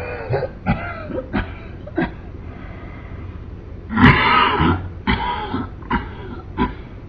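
A man coughing in a series of short, harsh coughs, with a longer, louder coughing fit about four seconds in followed by several more single coughs.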